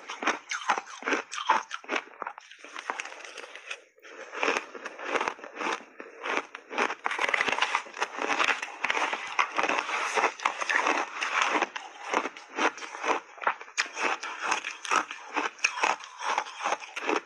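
Crunchy shaved ice dusted with milk powder being bitten and chewed close to the microphone: a rapid, continuous run of crisp crackling crunches, with a short break about four seconds in.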